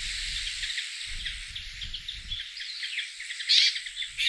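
A flock of bramblings calling: a dense chatter of many short, overlapping calls, with a few louder calls near the end.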